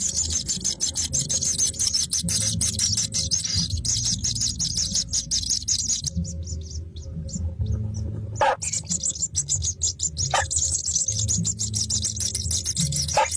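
Baby birds chirping rapidly and continuously in high, thin peeps, with a pause about six seconds in. A few short, lower calls stand out later on.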